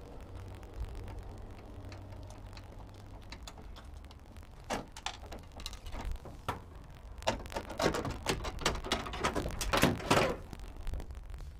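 Welded steel chain of a homemade truck mirror bracket clinking and rattling as it is handled, over a low steady hum. A run of sharp, irregular clinks and knocks starts about halfway through and grows busier towards the end.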